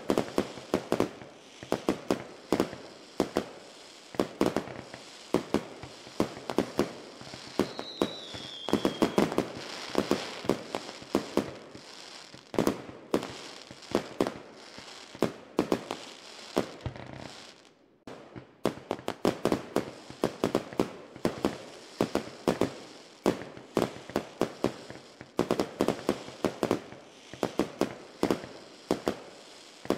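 Many fireworks and firecrackers going off at once, a dense, irregular run of pops and bangs with a brief lull a little past halfway. A short falling whistle comes about eight seconds in.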